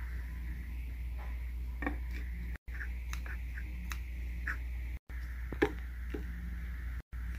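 Scissors cutting paper: a scattering of short, crisp snips and clicks, the sharpest a little past halfway, over a steady low background hum. The sound breaks off to silence three times for a split second.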